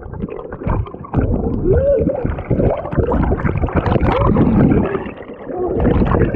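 Waterfall water pouring and splashing, with a loud, muffled gurgling.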